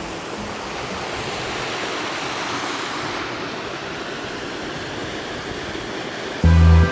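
Steady rush of a creek waterfall, loud and even. Music with deep bass notes cuts in near the end.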